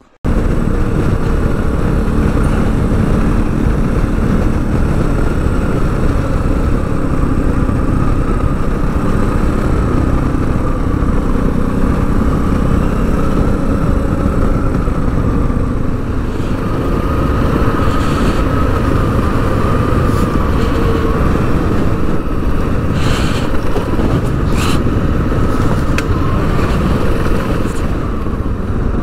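Motorcycle running steadily while being ridden, its engine note wavering slightly, with a few short sharp knocks in the second half.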